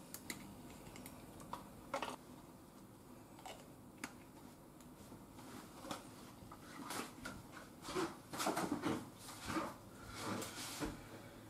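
Faint kitchen handling noise: a few light clicks as a tube of ginger paste is opened and squeezed, then a busier run of clicks, knocks and rustling from about seven seconds in.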